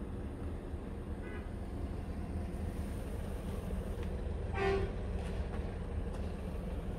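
Scania R truck's diesel engine idling steadily, heard from inside the cab. A short tooting tone sounds once about four and a half seconds in.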